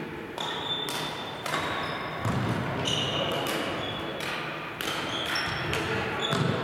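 Badminton play on several courts: sharp clicks of rackets striking shuttlecocks and short high squeaks of shoes on the wooden floor, with voices in the background.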